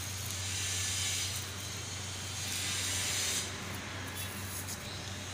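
Steady hiss over a low steady hum, the hiss swelling twice.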